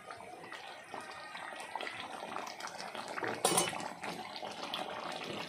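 Beef curry bubbling at a rolling boil in an aluminium pot, a steady crackly simmer of popping bubbles, with one brief louder burst about three and a half seconds in.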